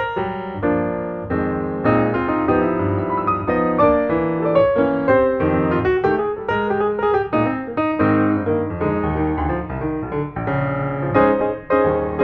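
Piano music, a continuous run of notes played at an even pace.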